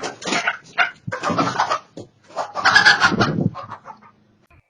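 Chicken squawking and clucking in three loud bursts, dying away near the end.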